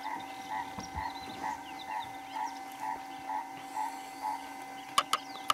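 A small animal calling in a steady series of short notes, about two a second, which stops near the end. Three sharp clicks follow close together and are the loudest sounds.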